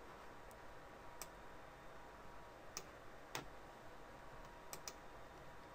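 Faint computer mouse clicks over quiet room hiss: about half a dozen short clicks, the clearest one about three and a half seconds in, and two in quick succession near the end.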